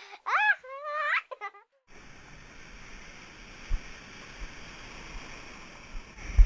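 For about two seconds, short phrases of a high voice with sliding pitch play over silence. Then the steady rush of wind and water from the paddleboard riding whitewater takes over, with wind on the microphone and two low thumps, the second near the end.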